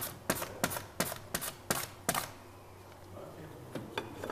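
Potatoes being sliced thin on a plastic cutting board: sharp, evenly spaced cutting clicks about three a second for about two seconds, then one more near the end.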